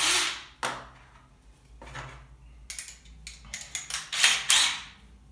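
Small metal fasteners and hardware clinking and rattling as they are handled, in a handful of short, irregular bursts.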